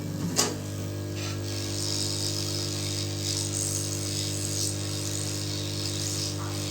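Electric heat gun blowing hot air to shrink a heat-shrink sleeve over a repaired USB-C cable: a steady motor hum with a hiss of air that rises about a second and a half in.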